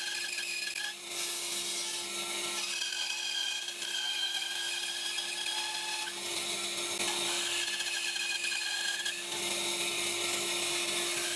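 Bandsaw running with a steady hum while its 3/16-inch, 10 TPI wood blade cuts through a thick wooden blank; the cutting noise rises and eases as the piece is fed along the line.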